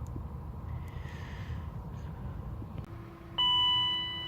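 A single electronic chime, such as a car's warning gong, sounds about three seconds in and slowly fades, over a steady low hum.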